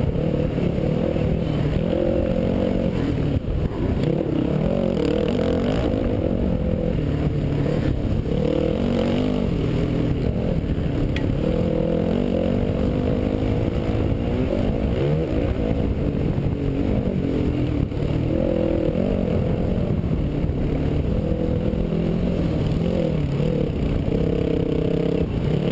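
Dirt bike engine heard close up from a helmet-mounted camera, running hard under load, its pitch rising and falling again and again with throttle and gear changes.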